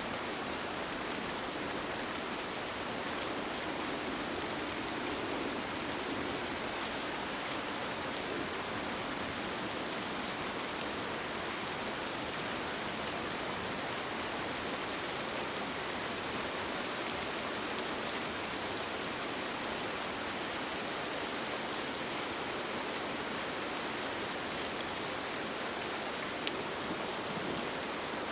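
Steady rain falling on a tent, an even hiss with scattered individual drop hits ticking through it.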